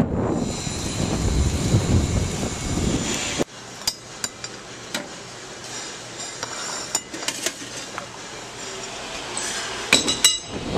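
Wind rumbling on the microphone while riding a bicycle. About three and a half seconds in it stops abruptly, giving way to scattered clinks of metal serving tongs and utensils against stainless steel buffet pans. Near the end comes a quick run of clinks as a plate with a glass on it is set down.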